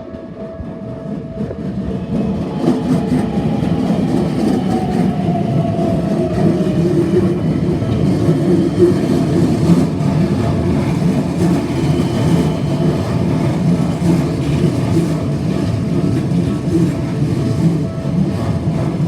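A train rolling slowly through a tight curve past a level crossing, its wheels rumbling and clattering on the rails, growing louder over the first few seconds and then holding. The crossing's warning bell keeps ringing steadily underneath, and a falling whine sounds about six seconds in.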